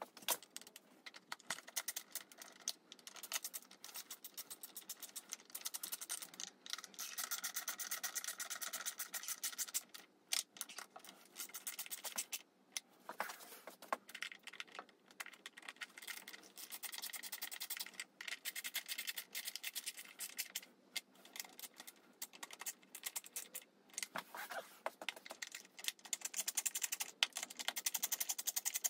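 Dense scratching, rubbing and quick clicking of plastic parts being handled as black plastic intake trumpets are fitted onto a motorcycle's three throttle bodies, with several short pauses.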